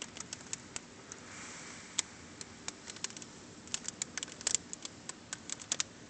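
Wind-driven blizzard snow ticking irregularly against a window pane in dozens of sharp clicks, thicker in the second half, over a faint steady hiss of wind.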